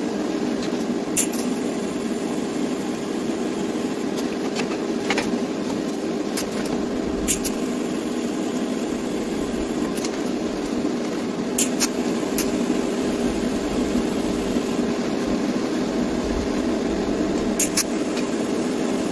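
A steady machine hum, with scattered clicks and clanks of metal being handled and clamped on a steel welding table.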